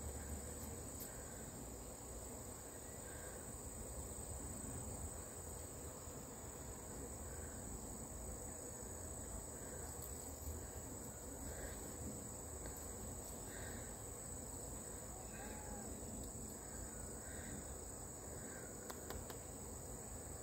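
A steady, high-pitched chorus of insects, with a softer, lower chirp recurring about every two seconds and a few faint clicks.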